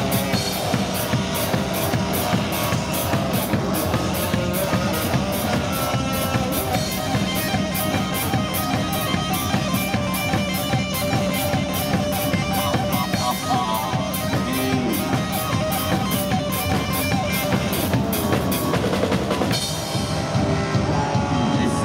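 Amplified band music: drum kit with bass drum and guitar over a fast, evenly repeating beat in the cymbals. The beat drops out about twenty seconds in and the music changes.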